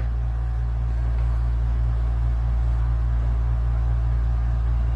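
Steady low hum, unchanging throughout, with faint even background noise above it.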